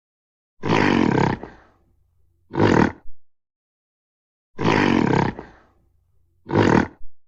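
Gorilla calling: a harsh, loud roar about a second long followed by a shorter one, the pair heard twice.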